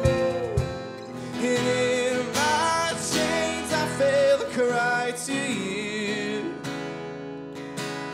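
Live acoustic song: an acoustic guitar strummed under sung vocals.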